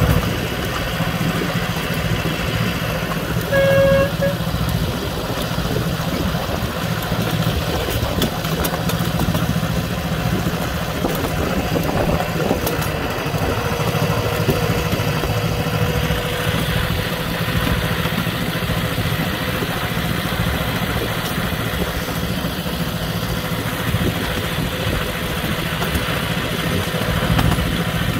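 Miniature railway locomotive's engine running steadily as the train travels along the track, with a short horn toot about four seconds in.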